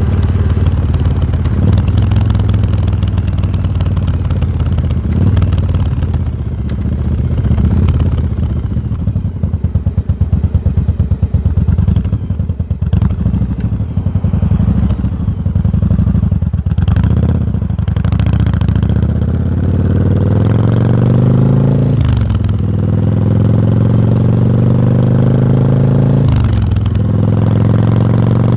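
Yamaha Virago V-twin motorcycle exhaust under way. In the middle the engine runs at low revs with an uneven, choppy beat. Later the revs climb steadily, dropping sharply twice a few seconds apart as it shifts up through the gears.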